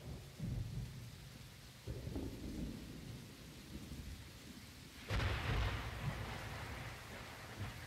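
Thunderstorm sounds in a dark ambient piece: low rolling rumbles of thunder, then a sudden, louder thunderclap about five seconds in that trails off into a steady hiss of rain.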